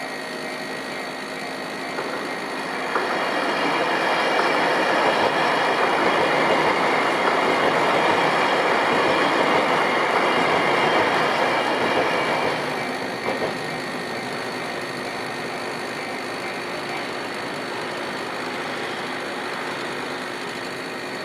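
A train passing over a railway level crossing: a rush of wheel-on-rail noise that swells about three seconds in, holds for about nine seconds and fades away, over steady high-pitched tones.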